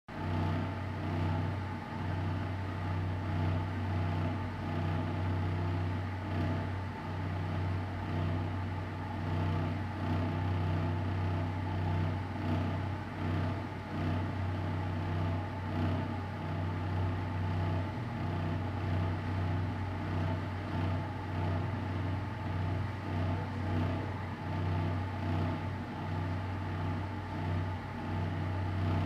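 Empty-room room tone: a steady low hum with fainter constant tones above it and a light background hiss, unchanging throughout.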